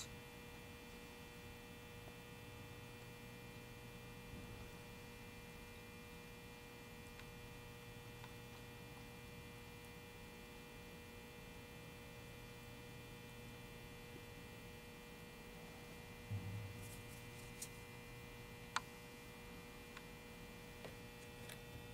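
Steady electrical mains hum in a quiet room, with a soft knock and a few faint clicks late on.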